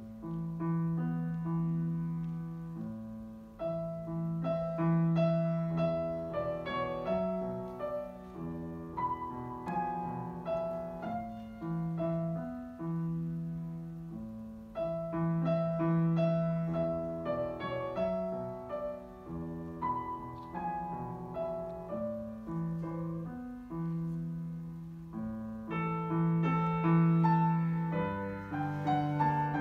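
Solo Yamaha grand piano playing a classical piece: a recurring low bass note under a flowing melody, growing fuller and louder near the end.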